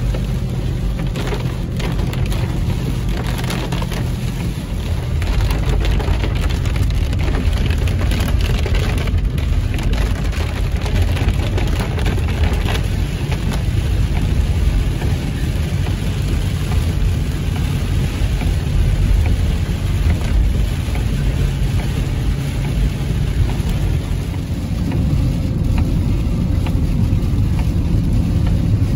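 Heavy rain pelting a moving car's windshield and roof, heard from inside the cabin, over the low rumble of tyres on the wet road. It grows louder about five seconds in.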